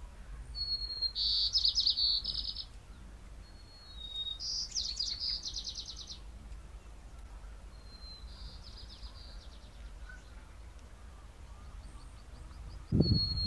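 A songbird singing three short phrases about two seconds apart, each a thin high note followed by a quick, even trill of repeated notes. A faint low rumble of wind sits under it, and a low thudding starts just before the end.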